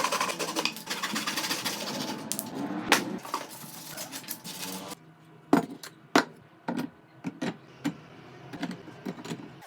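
A small woodworking power tool running with a fast, even chatter, stopping suddenly about five seconds in, followed by a handful of separate knocks and taps.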